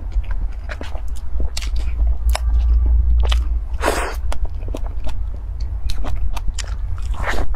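Close-up mouth sounds of a person eating nut-coated cream cake: wet biting and chewing with many short clicks and smacks, and a louder bite about four seconds in and another near the end, over a steady low hum.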